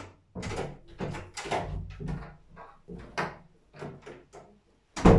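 Door sounds: a run of irregular rattles and thumps, then one loud bang about five seconds in.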